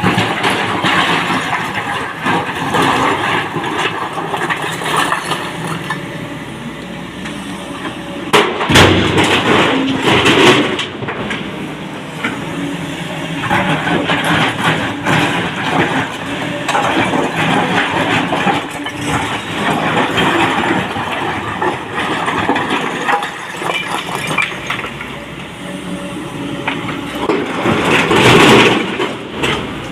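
Excavator working with its engine running steadily while loading rock into a dump truck. Two loud bouts of crashing rock, the first about a third of the way in and the second near the end, are loads dropped from the bucket into the truck bed.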